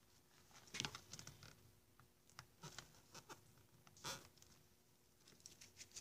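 Faint scattered taps and rustles of gloved hands handling a soldering iron and wire on a tabletop, loudest about a second in and again about four seconds in.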